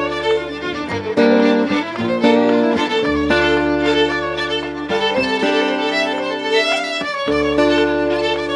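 Celtic fiddle tune played by a small ensemble: the fiddle carries a quick melody over long held low notes that change every second or so.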